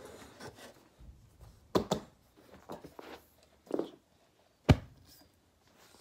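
Footsteps and knocks on a carpeted floor close to the microphone: a string of separate thumps, the loudest a double knock about two seconds in and a single sharp one near five seconds.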